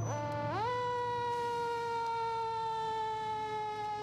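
Fire engine siren sweeping up in pitch in the first second, then holding one long note that slowly sinks in pitch.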